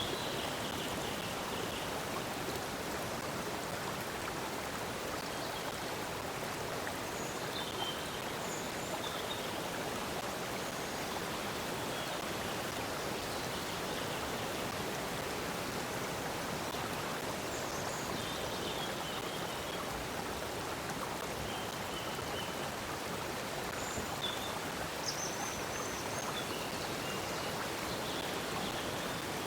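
Stream water flowing steadily, with brief high bird chirps here and there.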